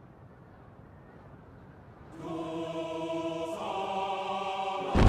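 A faint low rumble, then an ominous sustained choir-like chord from the anime score swells in about two seconds in, shifts to a new chord and grows louder. Near the end a sudden loud boom hits.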